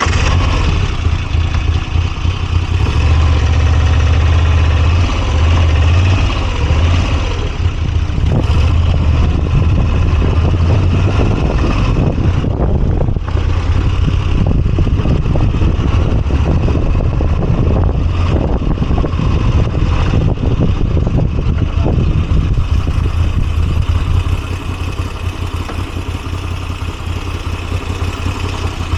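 Moto Guzzi V85TT's air-cooled V-twin engine running steadily with a deep low rumble, dropping slightly in level near the end.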